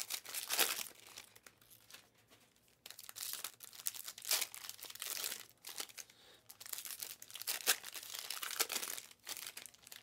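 Foil wrapper of a Panini Mosaic basketball card pack crinkling and crackling as it is handled and opened, in irregular bursts with short pauses.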